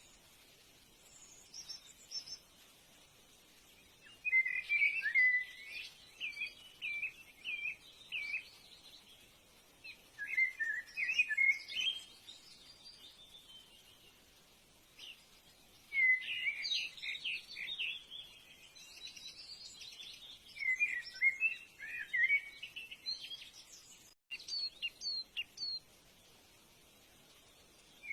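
Birdsong: short, warbling, chirping phrases coming in spells every few seconds, with quiet gaps between them.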